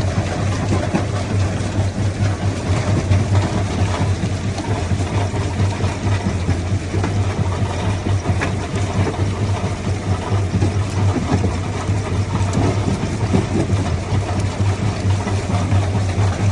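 Primary jaw crusher running steadily, a constant low machine hum under the dense clatter and grinding of stone being crushed.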